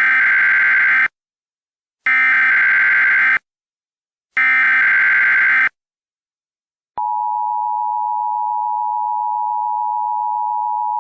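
Emergency Alert System broadcast tones: three one-second bursts of rapid warbling data tones (the SAME header), then, about seven seconds in, the steady two-note EAS attention signal.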